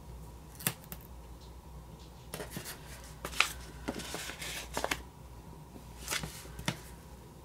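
Paper sticker sheets being handled: short crisp rustles, scrapes and taps in irregular clusters as stickers are lifted off and pressed down on planner pages, the sharpest one about three and a half seconds in.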